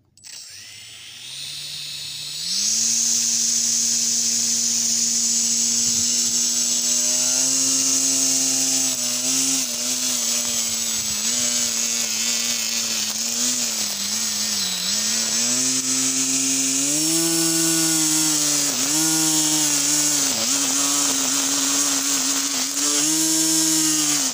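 Homemade mini grass cutter's 2200 kV brushless drone motor spinning up over the first couple of seconds to a steady high whine. Its pitch dips briefly several times as the cutting tip meets the grass, and it cuts off suddenly at the end.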